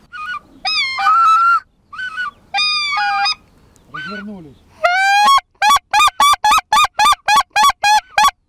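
Hunter's goose call imitating white-fronted geese: separate high honks, then one longer rising call about five seconds in, followed by a fast, even run of short clucking notes, about five a second.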